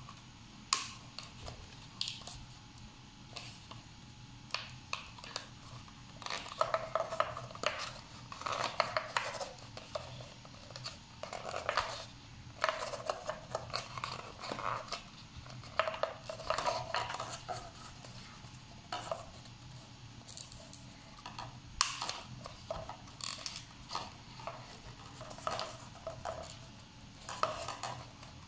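Paper cups being handled while one is fitted onto the end of a thin skewer: irregular crinkling and rustling of paper in short clusters, with scattered sharp clicks.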